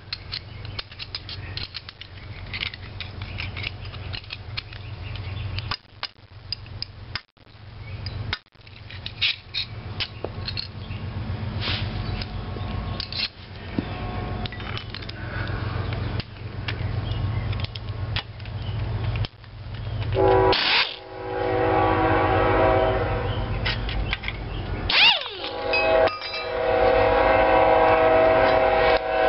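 A train passing with a steady low rumble, under scattered metal clinks of wrench work on the engine's bolts. About two-thirds in, a multi-note train horn sounds a long blast, then a second long blast that is still going at the end.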